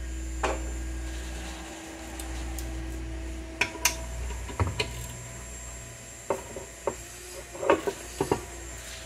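Light metallic clinks and knocks of small metal parts being handled and fitted, about ten scattered taps, over a steady low hum.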